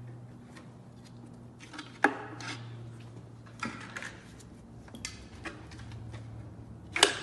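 Plastic clicks and knocks as a Vauxhall Meriva's rear light cluster is pulled free of its mounting lugs and handled. There are two sharp, louder snaps, one about two seconds in and one near the end.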